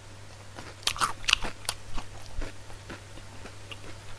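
Close-up crunchy chewing of fried chicken: a cluster of crisp crunches about a second in, then sparser, softer chewing clicks.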